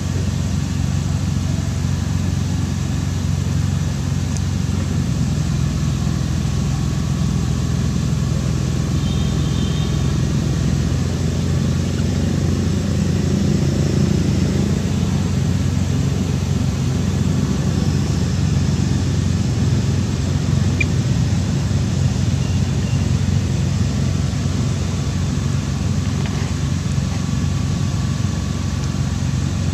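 Steady low mechanical drone, like an engine or motor running without pause, with a brief high squeak about nine seconds in.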